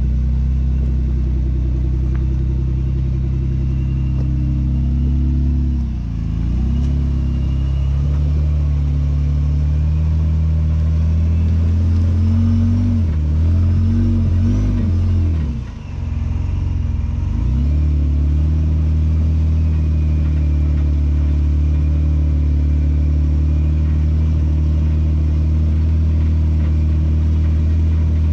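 Jeep JK rock crawler's engine running steadily as it climbs a steep rock ledge, its pitch wavering and dipping briefly about six seconds in and again from about twelve to seventeen seconds in as the throttle is worked.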